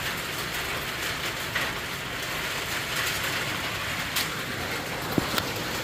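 Steady background hiss with a few light clicks and knocks, from the air compressor's power cord being handled and plugged back in; the motor does not start.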